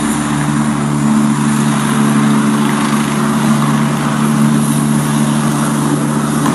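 Eurocopter EC145 rescue helicopter hovering, its rotor and turbines making a loud, steady drone with a constant low hum.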